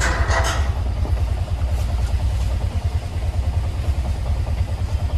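Auto-rickshaw engine running, a steady low throb heard from the ride.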